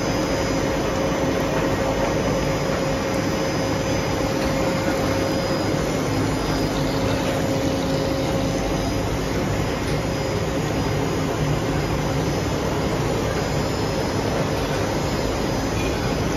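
Steady drone of a running extrusion production line, an even noise with a faint hum through it.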